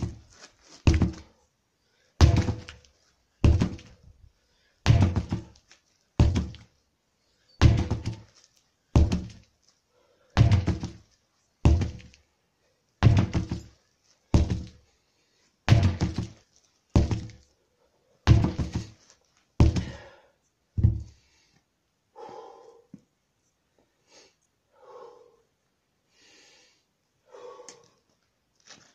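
Sledgehammer striking a stack of old tyres: a dull thud about every second and a quarter, some seventeen blows in steady rhythm. The blows stop with about eight seconds to go, leaving only faint, irregular sounds.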